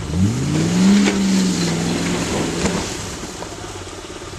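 A 4x4's engine revs up sharply over about a second, is held at high revs while the vehicle pushes along a muddy rut, then eases off. A couple of short knocks come from the vehicle.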